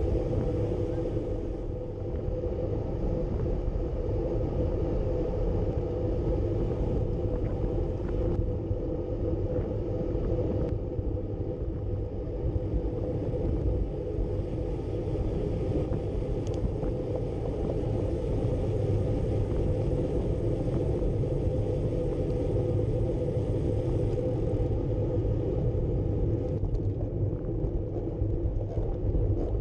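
Steady low rumble of wind buffeting a bike-mounted camera's microphone, mixed with road-bike tyres rolling fast on asphalt.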